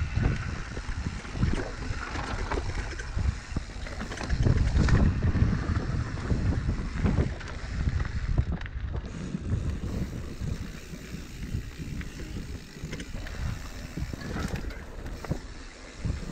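Mountain bike riding fast down a dirt trail: the tyres rumble over dirt and roots while the bike knocks and rattles over the bumps, with wind buffeting the camera microphone.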